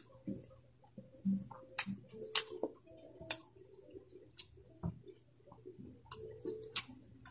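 Close-up eating sounds: wet mouth clicks and smacks, about half a dozen, while chewing a hand-eaten meal, with soft squishing of fingers in cooked greens and noodles.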